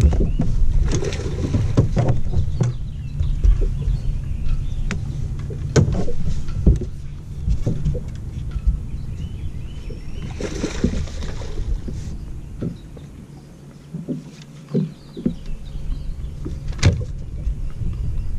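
Wind buffeting the microphone on a bass boat's front deck, easing off for a moment about thirteen seconds in, with scattered clicks and knocks of the angler's gear during a fight with a hooked bass. A short splash comes about ten seconds in.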